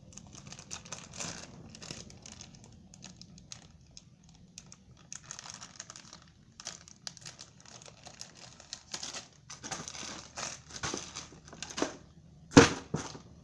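Slime being scooped and squished into a container: irregular crackling and sticky handling noises, with a sharp knock near the end.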